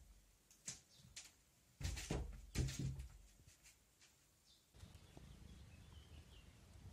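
A cat jumping at a wardrobe door and batting at its handle: a handful of knocks and thumps against the cupboard doors, loudest about two to three seconds in. Partway through, the sound changes abruptly to a faint steady outdoor background.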